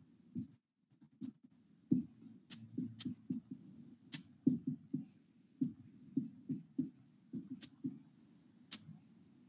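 Felt-tip marker writing on a whiteboard: an irregular run of short taps and strokes as the tip touches down and moves, a few each second, with brief pauses between words.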